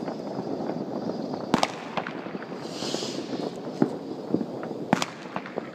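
New Year's fireworks going off all around: a steady clatter of many bangs and crackles, with sharp, louder bangs about a second and a half in and near the end, and a rocket's hiss in the middle.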